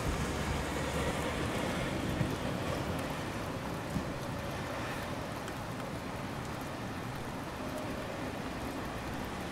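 Steady rain falling, an even hiss with no pitch to it.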